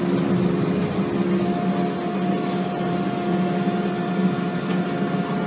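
Large excavator running, its engine and hydraulics giving a steady hum as the boom moves, with a steady higher tone coming in about a second and a half in.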